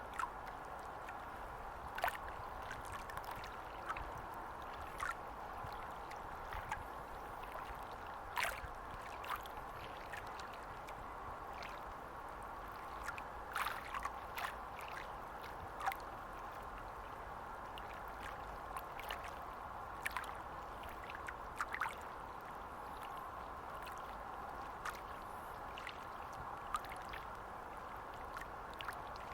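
Estuary water lapping at the shore: a steady wash with irregular sharp little splashes every second or two.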